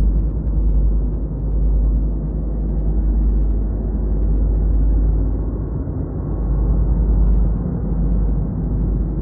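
Steady low rumble of wind buffeting and engine noise picked up by a camera mounted on the front of a moving motorcycle.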